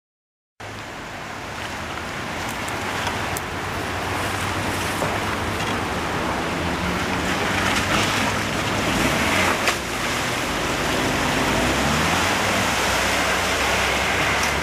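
Lada Niva 4x4 engine running under load as it churns through a muddy, water-filled ditch, with water washing and splashing around it. The engine pitch rises for a few seconds about midway.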